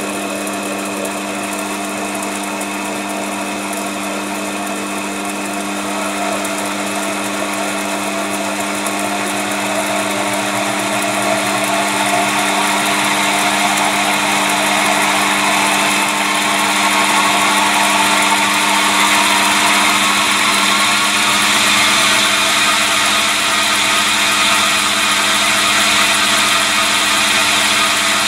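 A 200 W DC treadmill motor belt-driving a lathe milling attachment's spindle, running up in speed as its speed controller is turned up: the whine rises in pitch and gets louder through most of the stretch, the spindle going from about 800 to about 1280 rpm. A steady hum sits underneath.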